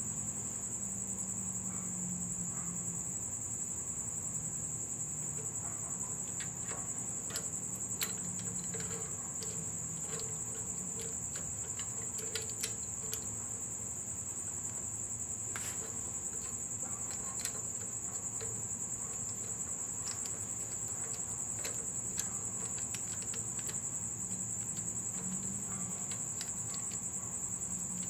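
Crickets trilling steadily at a high pitch, with scattered light metallic clicks of rocker arms, pushrods and fasteners being handled and fitted on a Ford 302 V8's cylinder head.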